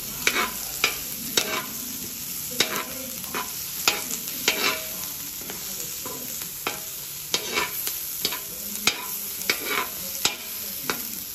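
Chopped garlic and red onion sizzling in oil in a wide aluminium kawa (wok), with a metal spatula scraping and clinking against the pan in irregular strokes about once or twice a second.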